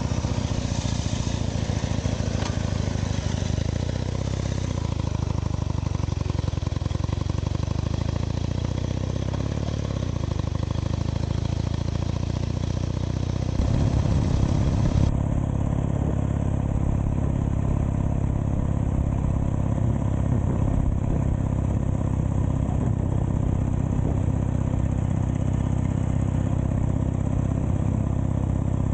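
1920 Douglas W20 flat-twin engine running steadily while the motorcycle is ridden along, getting louder and rougher from about 13 seconds in.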